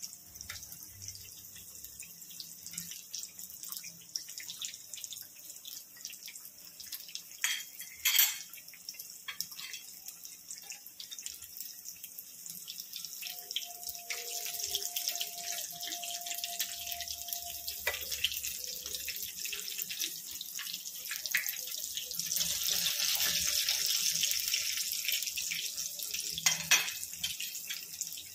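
Breaded chicken patties deep-frying in hot oil in a pan, a steady sizzle with constant fine crackling that swells louder for a few seconds in the last third. A sharp knock about eight seconds in and another near the end.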